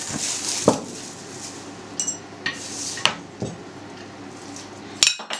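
A metal spoon stirring chopped raw meat-and-onion filling in a bowl, knocking and clinking against the bowl about six times, a few of the knocks ringing briefly like metal.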